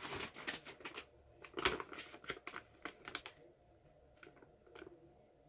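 Plastic snack bag being handled: irregular crinkling and crackling in quick clusters, louder in the first half and sparser near the end.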